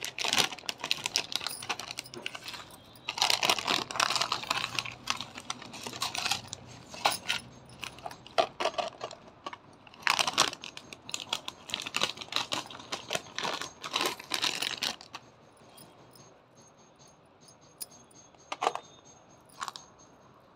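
Plastic packaging crinkling and rustling in quick bursts as a beaded necklace set is unwrapped by hand, with small clicks of the jewellery pieces being moved. It dies down about fifteen seconds in, leaving only a couple of faint clicks.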